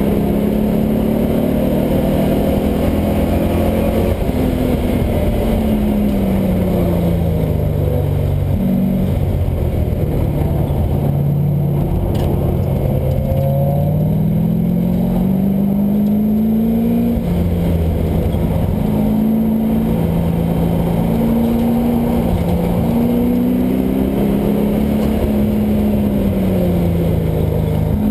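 LS1 V8 engine of a swapped Mazda Miata being driven hard on a race track, its pitch climbing under acceleration and dropping off on braking and shifts several times. There is a long climb and fall in the middle and a steadier stretch after that.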